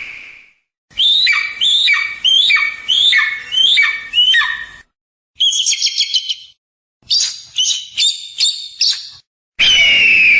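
Eagle calling: a series of about seven shrill notes, each sliding up and then falling, about two a second. Then, after a short pause, a quick stutter of higher notes, and a run of rapid chirping notes.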